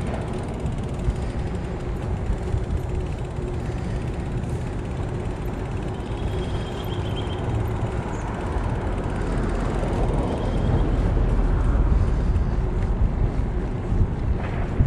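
Wind rushing over a chest-mounted camera's microphone during a bicycle ride, mixed with tyre and road noise and a faint steady hum. The wind grows louder about eight seconds in.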